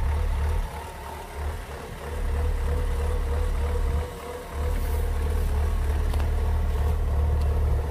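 Kubota DC-105X combine harvester's diesel engine running steadily under load as the tracked machine crawls over a raised field bund, with a steady whine over a low rumble. The loudness drops briefly about a second in and again around four seconds in.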